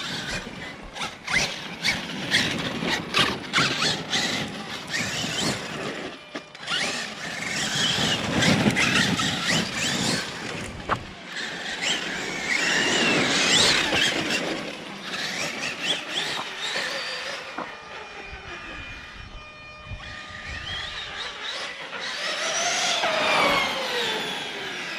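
High-powered electric RC monster truck on a test run: its brushless motor and drivetrain whine, rising and falling in pitch as it accelerates and slows, with many sharp clicks and knocks from the chassis and tyres over rough ground.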